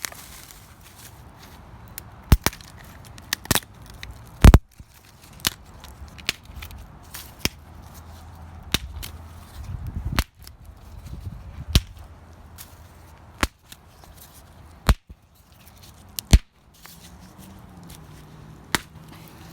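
Pine branches snapping, in a dozen or so sharp cracks spaced a second or two apart, with crackling and rustling between them; the loudest crack comes about four and a half seconds in. A low steady hum sets in near the end.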